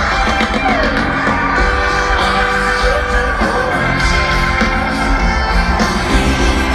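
Live band playing a rock song at full volume over a concert PA system, heard from within the audience.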